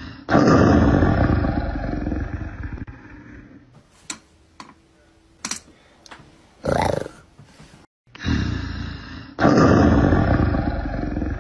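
Recorded big-cat roar sound effect, loud at first and fading over about three seconds, played twice with the second one near the end. A few faint clicks and a brief softer sound lie between the two.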